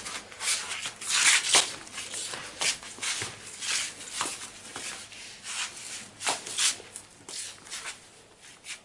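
Irregular rustling and rubbing scuffs, a few a second, dying away near the end.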